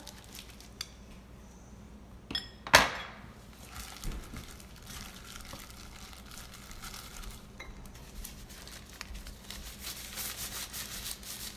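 Kitchen scissors put down with a sharp clack about three seconds in, the loudest sound here. After that comes the soft crinkling rustle of a disposable plastic glove mixing and squeezing sticky rice in a glass bowl.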